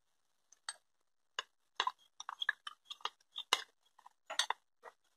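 Metal spoon stirring a sauce in a ceramic bowl, clinking against the bowl's sides in quick, irregular taps that begin about half a second in.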